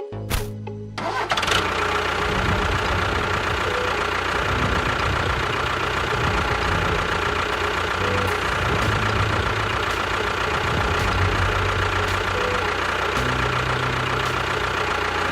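A motor running steadily. It starts suddenly about a second in, with a constant high whine over its running noise, and cuts off suddenly at the end.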